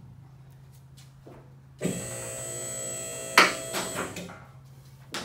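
A small electric motor whines for about two and a half seconds over a low steady hum, with a loud metallic clack partway through and a couple of lighter clanks. A short clack comes near the end.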